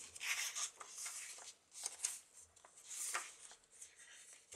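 Paper pages of a thick handmade journal being turned, rustling in a few short bursts.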